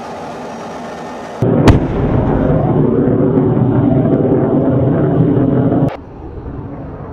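Bomb explosion: a sharp blast about one and a half seconds in, then a heavy rumble for about four seconds that cuts off abruptly. Before it, a steady rushing noise; after it, the quieter steady noise of a jet in flight.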